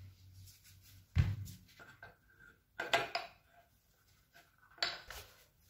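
Clunks and small clatters of a PCP air rifle and its air bottle being handled on a bench. There are three main knocks, about two seconds apart.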